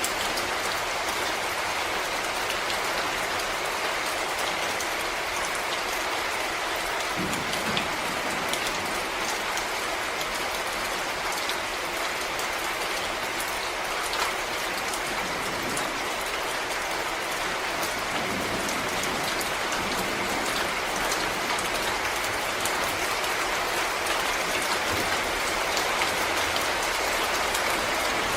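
Steady rain falling in a forest, drops hitting leaves and the ground, with many single drips standing out as sharp ticks.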